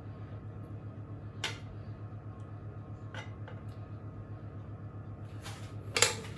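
Metal kitchen tongs clicking and scraping in a nonstick frying pan as pasta is lifted out. A few light clicks are followed by a louder scraping clatter near the end, over a steady low hum.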